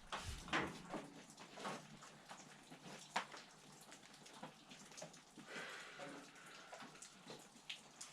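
Water dripping and pattering irregularly, faint, from heavy wet snow melting after rain.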